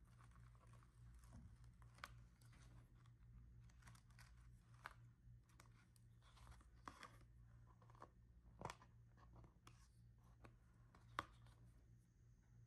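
Faint scratching, rustling and scattered light taps from hands working on a coloured-sand picture, over a low steady electrical hum. A few sharper taps stand out, about two seconds in, around nine seconds and again near eleven seconds.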